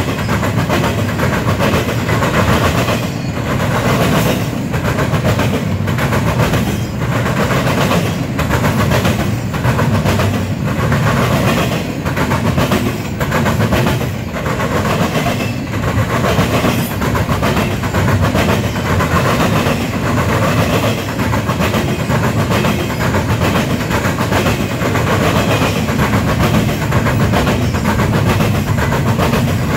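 Intermodal freight train rolling steadily past, its wheels clacking over rail joints roughly once a second above a continuous rumble and rail noise.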